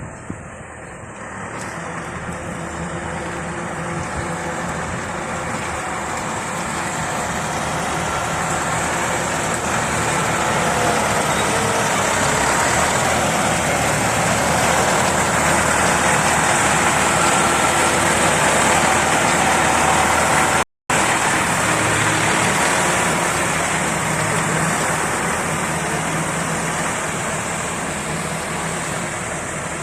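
DT-75 crawler tractor's diesel engine running under load as the machine is driven, growing louder to a peak midway and then easing off. The sound cuts out for a moment about two-thirds of the way through.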